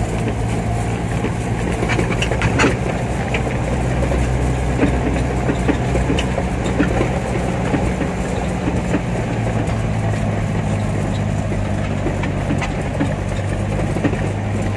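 Vehicle engine running steadily, heard from inside the cab while driving, with scattered small clicks and knocks over the engine hum.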